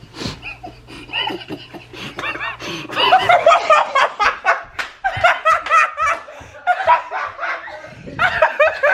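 A group of people laughing hard, quieter at first and then breaking into loud, continuous laughter from about three seconds in.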